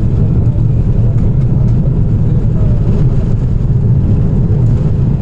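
Airbus A330-300 jet engines at takeoff power, a loud steady low rumble.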